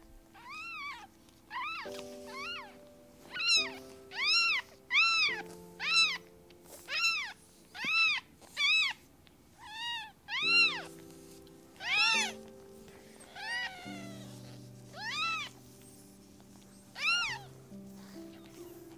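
A cat meowing over and over, about fifteen calls at roughly one a second, each rising then falling in pitch, with longer gaps near the end. Soft background music plays underneath.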